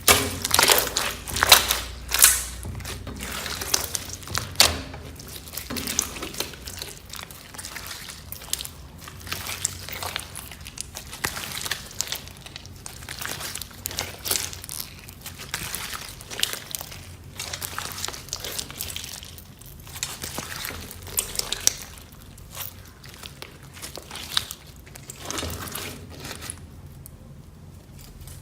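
Slime being kneaded and squished by hand, giving dense crackling and crunching clicks, loudest in the first few seconds.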